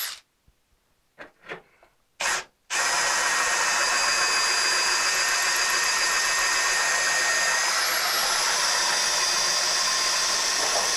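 Cordless drill fitted with a hole saw, set to slow speed: a few short trigger blips, then a long steady run as it bores into the car's sheet-steel firewall. The whine shifts a little about 8 seconds in. The hole saw is one that barely cuts.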